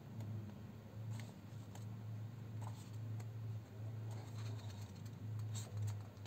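Pages of a hardcover book being turned by hand: soft paper rustles and light flaps of thick sheets, a few times, the loudest near the end. A steady low hum runs underneath.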